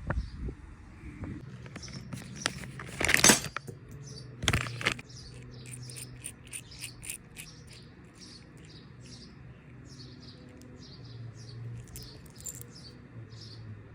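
Small birds chirping in quick, repeated high notes, over a low steady hum. Two short, loud noises stand out, about three seconds in and again a second and a half later.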